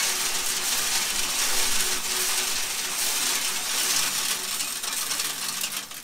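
Shelled corn kernels pouring out of a combine's clogged cleaning shoe auger, a dense, steady rattle of grain that dips near the end.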